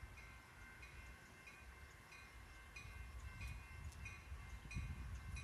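Railroad grade-crossing warning bell ringing steadily, about one and a half strikes a second, as a train approaches. A low rumble builds near the end.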